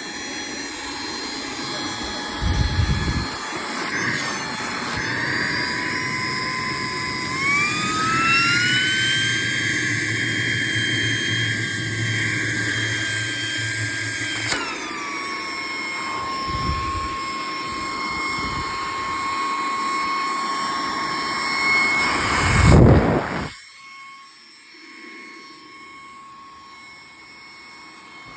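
Small hand-held vacuum cleaner's motor running with a high whine. Its pitch rises about eight seconds in and drops back about fifteen seconds in. A loud rush comes near twenty-three seconds, after which the sound is much quieter.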